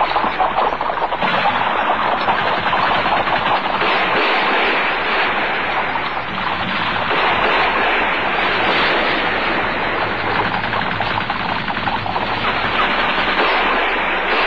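Battle sound effect of rapid machine-gun fire, dense and continuous.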